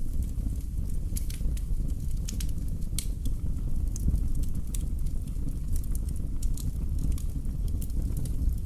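Wood fire burning in a fireplace, crackling: irregular sharp pops and snaps over a steady low rumble.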